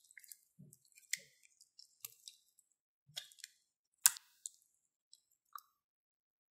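Pearly green slime squeezed and worked in a hand, giving sticky squishes and quick crackling pops, with one louder wet pop about four seconds in as it is dropped into a bowl of clear slime. A few faint small clicks follow.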